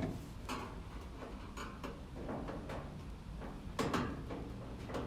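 Scattered light clicks and knocks of hand work: a screwdriver and metal fittings being handled and turned in a tight space. The loudest knock comes a little before four seconds in.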